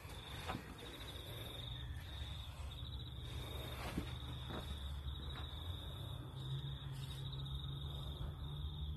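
Crickets chirping: a high, rapidly pulsing trill in runs of about a second with short breaks, over a low hum, with a few faint taps.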